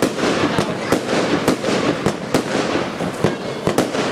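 150-shot compound fireworks cake firing shot after shot, about two sharp bangs a second over a continuous noise of bursting effects.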